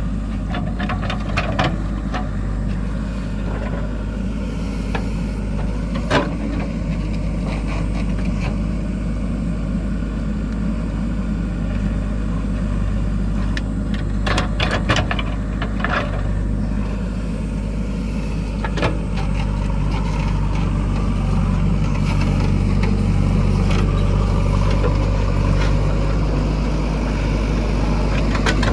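Heavy diesel engine running steadily at an even speed, with a few short knocks and clatters scattered through, a cluster of them near the middle.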